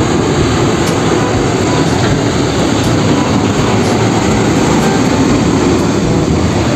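Green Hino tank truck driving past on a road amid other traffic: steady diesel engine and tyre noise.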